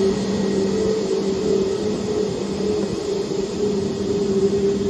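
Airbus A320neo's CFM LEAP-1A turbofan engines running steadily at low taxi power: a constant two-note hum over a rushing sound.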